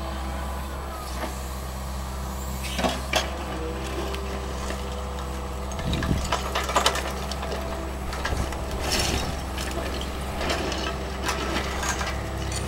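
Yanmar mini excavator's diesel engine running steadily under work as it digs into rubble, with several clanks and scrapes of the bucket against broken bricks and concrete.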